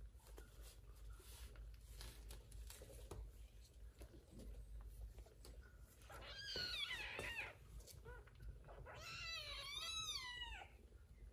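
Two high-pitched cries from a young animal. The first falls in pitch about six seconds in, and a longer, warbling one follows about nine seconds in, over faint rustling.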